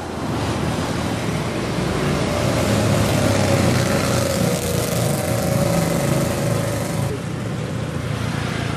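Steady hiss of hot oil sizzling in a wok as pieces of chicken deep-fry, mixed with street traffic; an engine hum rises and fades through the middle as a vehicle passes.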